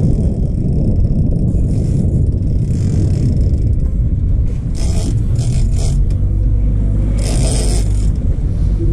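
A boat's engine running steadily, heard as a low rumble under wind buffeting the microphone, with a few short bursts of hiss from water washing along the hull about five and seven seconds in.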